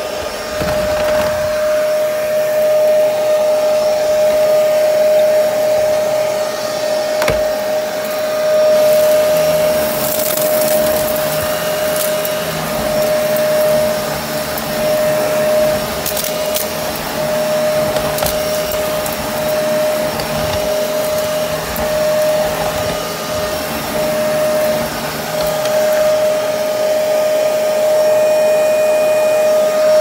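Kenmore Intuition upright vacuum with a direct-drive beltless brushroll running steadily with a high, even whine, pushed over wooden deck boards and a doormat. A few short, sharp clicks come through now and then.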